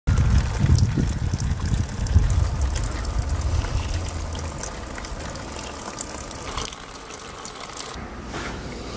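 Water running and trickling, with a heavy low rumble for the first half that then fades away.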